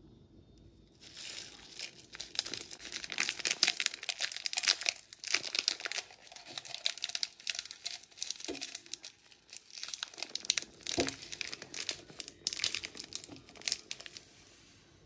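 Cadbury Flake bar's plastic wrapper crinkling and rustling as the bar is peeled open and the flaky chocolate crumbled out of it, a dense run of irregular crackles that starts about a second in and stops abruptly near the end.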